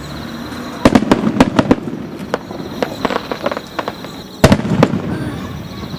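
Aerial fireworks bursting: a loud bang about a second in, then a quick string of crackling pops, and another loud bang near the middle followed by more crackling.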